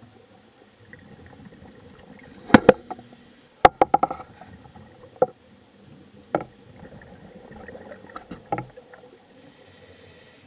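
Underwater sound with a faint hiss and irregular sharp knocks and clicks, the loudest a little over two seconds in and a cluster near four seconds, with a few more later.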